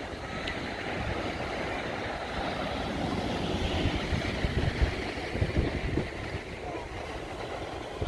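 Wind buffeting the microphone in low gusts, over a steady hiss of small waves washing onto a sandy beach.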